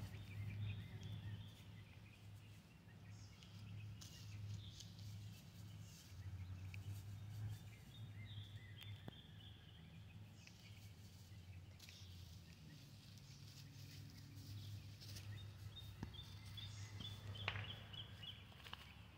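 Faint outdoor background: a steady low hum with scattered faint high chirps and a few soft clicks.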